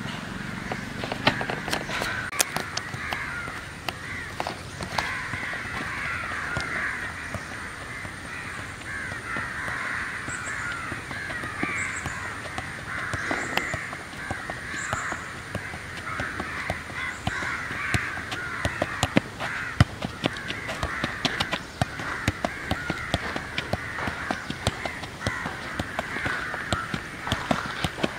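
A dense, continuous chorus of birds calling, with frequent sharp taps of a football being juggled on the feet.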